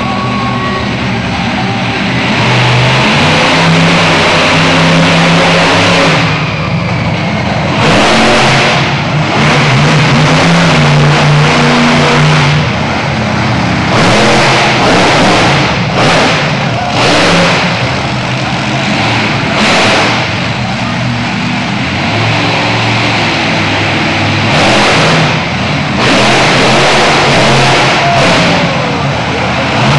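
Monster truck engine revving hard, its pitch climbing and falling as the throttle is worked, with repeated loud full-throttle bursts several times over.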